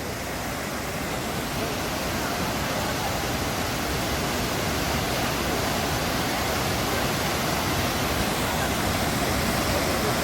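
Waterfall: a steady rush of falling water, slowly growing louder.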